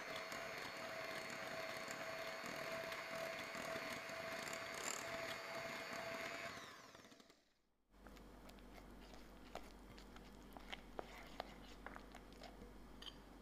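Electric hand mixer running at medium speed, its beaters whirring through creamed butter and sugar in a glass bowl with a steady whine, fading out about seven seconds in. After that, soft scattered clicks and scrapes of a silicone spatula stirring the mixture against the glass bowl.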